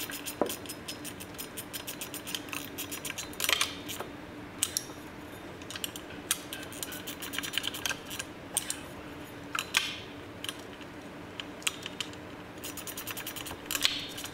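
Steel wrench ticking and clinking on the driveshaft's U-joint flange bolts as they are tightened, with a screwdriver wedged in the flange to hold the shaft. Rapid even ticking for the first three seconds or so, then single sharp metal clicks every second or two, over a faint steady hum.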